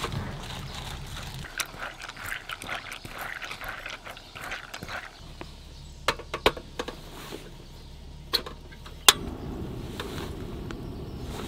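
Camp cooking gear being handled: rustling and small clicks and clatter, then a few sharp separate clicks. The loudest click comes about nine seconds in, followed by a steady low rushing sound.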